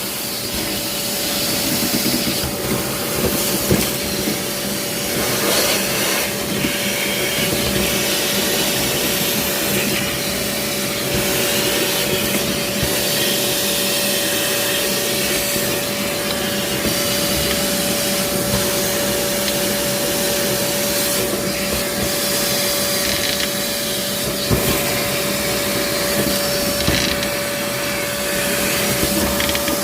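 A motorised machine running steadily with a constant whine throughout, with a few brief knocks.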